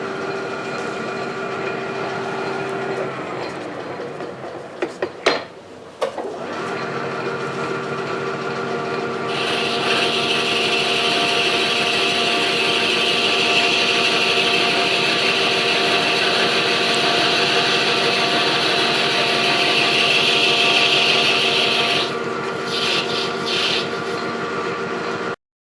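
Metal lathe running, its motor and gearing giving a steady hum with several held tones, taking a 50-thousandths turning cut in a brass workpiece. The hum drops briefly with two sharp clicks about five to six seconds in. From about nine seconds to twenty-two seconds a loud steady hiss of the cutting tool sits over the hum, and the sound cuts off suddenly just before the end.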